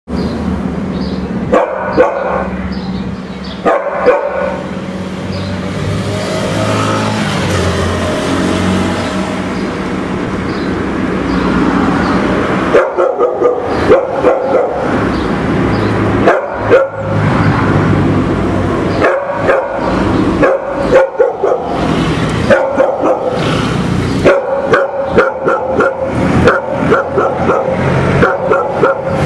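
A dog barking at the street in short, repeated barks: a few at the start, then rapid volleys through the second half. A car passes in the middle, between the early and the later barking.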